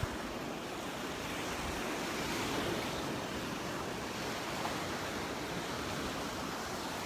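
Gulf of Mexico surf washing onto the beach, a steady rush of waves that swells slightly a couple of seconds in.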